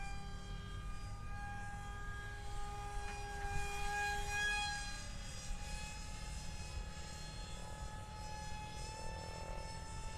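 Brushless electric motor and cut-down propeller of a radio-controlled F-22 Raptor model jet whining steadily in flight. The whine swells about four seconds in, then its pitch shifts slightly. Wind rumbles on the microphone underneath.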